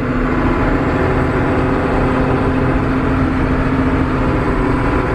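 Crawler bulldozer's diesel engine running steadily, heard from inside the cab.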